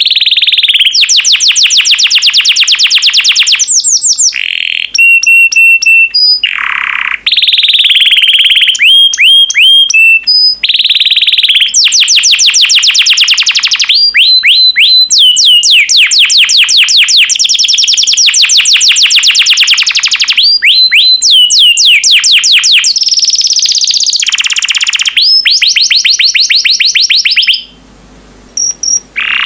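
Yellow canary singing loudly at close range: long phrases of fast trills made of rapidly repeated notes, mixed with rising chirps and held whistled notes, with a brief pause near the end.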